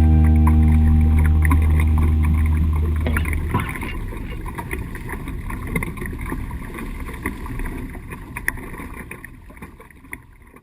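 The last held chord of a rock music track rings on and stops about three and a half seconds in. It leaves water splashing and wind noise around a small sailing boat, with scattered small knocks, gradually fading out.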